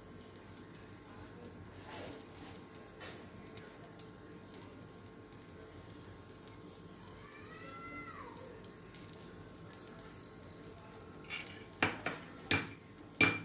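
A metal spoon lightly clinking and scraping against a steel kadhai and a glass bowl as dry chutney powder is sprinkled, with a few sharp taps near the end.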